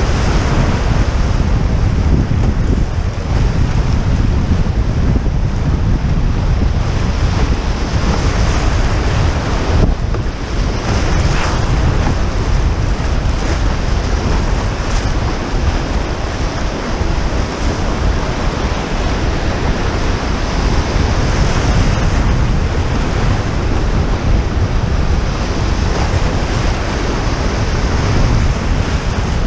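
Rushing whitewater of a river rapid churning and breaking around the bow of a canoe, a steady loud wash with a heavy wind rumble on the microphone.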